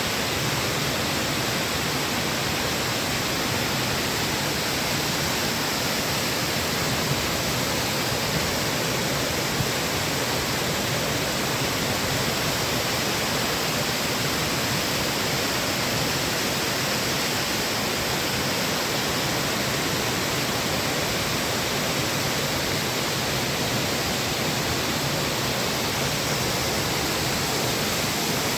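Waterfall rushing in a steady, unbroken wash of falling water.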